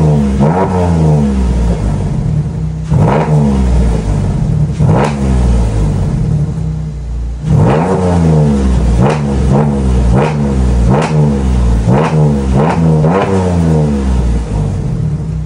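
A 2014 Mercedes-Benz GLK 350's 3.5-litre V6 revved in about a dozen quick blips through a newly fitted aftermarket exhaust, each rev climbing and dropping straight back, with a quieter lull a little past the middle. The exhaust is modified to give a louder, more aggressive sound.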